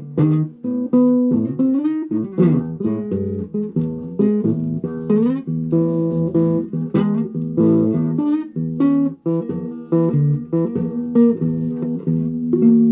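Electric guitar played as a melodic run of single plucked notes with a few string bends, some notes ringing on.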